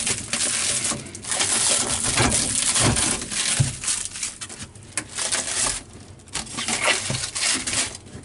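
Plastic packaging crinkling and rustling in irregular bursts as wrapped parts are handled, with a few sharp knocks.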